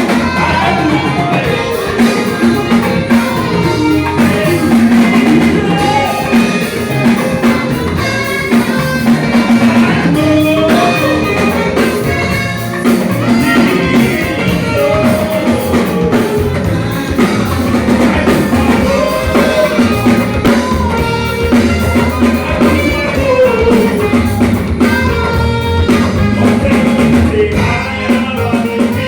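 Live band playing: drum kit, guitar and a sustained low note under a gliding melody line, with singing.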